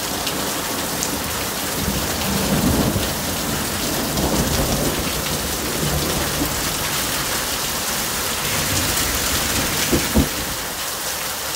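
Heavy rain pouring down steadily, with a low rumble of thunder a few seconds in and two short thumps about ten seconds in.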